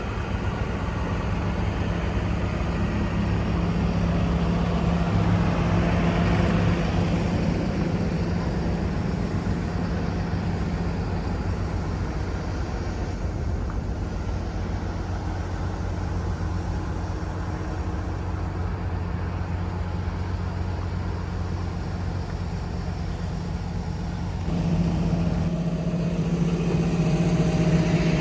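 Komatsu PC290LC-11 excavator's diesel engine running steadily, getting louder with a stronger low hum about three-quarters of the way in as the load or throttle changes.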